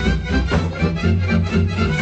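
Lively Hungarian folk dance music with a steady, pulsing bass beat.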